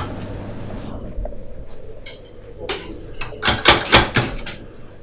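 Doser coffee grinder being worked by hand to fill an espresso portafilter: a hiss dies away over the first second, then a quick series of sharp plastic-and-metal clacks comes about three to four seconds in, about half a dozen in all.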